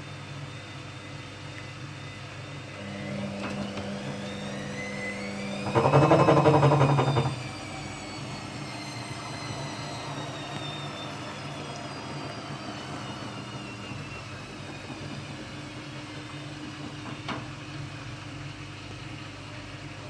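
Hoover Dynamic Next washing machine motor whining up in pitch, then a loud rapid rattling for about a second and a half, after which the whine falls away slowly in pitch over a low steady hum. The rattle is the noise the machine is being recorded for.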